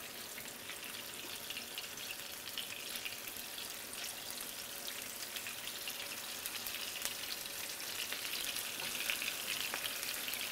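Flour-dredged pieces of baccalà (salt cod) frying in hot olive oil in a frying pan: a steady crackling sizzle that grows a little louder as more pieces go in. The sizzle is the sign that the oil is hot enough for frying.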